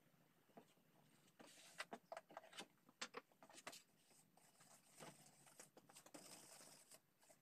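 Faint handling sounds: scattered light clicks and knocks, and the soft scrubbing of a hand brush swept over a table saw's metal table a few seconds in.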